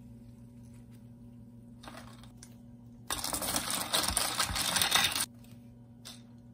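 Wooden spoon stirring ice and lime slices in a glass pitcher, with ice clinking and rattling against the glass for about two seconds. A few faint clinks come before it.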